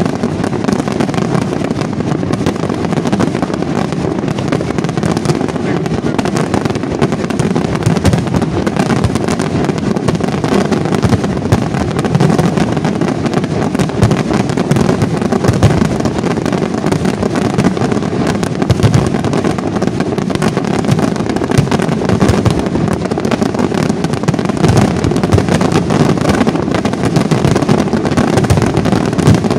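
Professional aerial fireworks display in a dense, unbroken barrage: many shell bursts and crackles overlapping without a pause, merging into one continuous loud rumble.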